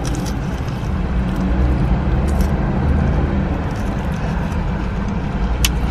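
Steady low rumble of an idling vehicle engine, with a few small mouth clicks from eating close to the microphone and one sharp click near the end.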